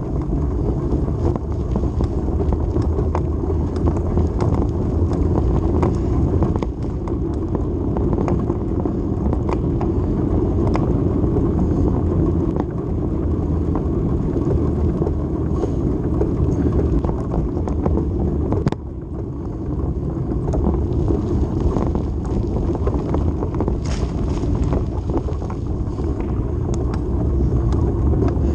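Wind rushing over the microphone and road noise from a small vehicle rolling over concrete, with scattered clicks and rattles.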